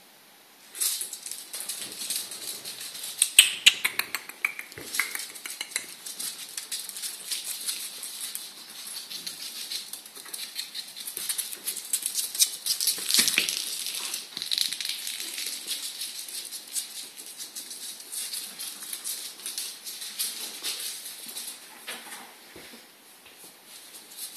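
A ferret's claws clicking and scrabbling on a laminate floor as it moves about, rapid light clicks and scratches with a few sharper knocks about three seconds in and again about halfway through.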